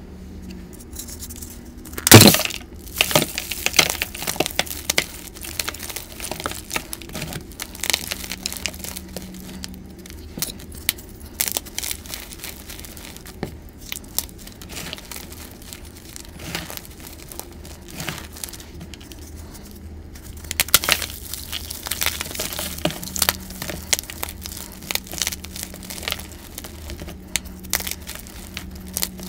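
Hands breaking and crushing dyed gym chalk blocks filled with glitter. A sharp crack about two seconds in is the loudest moment, followed by continuous irregular crunching and crumbling as the chalk is squeezed into powder.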